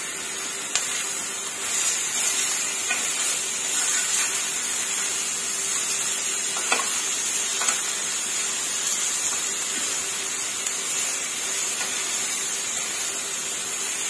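Chicken breast pieces sizzling steadily in a hot double-sided grill pan on a gas burner, with a few light clicks of metal tongs against the pan as the pieces are turned.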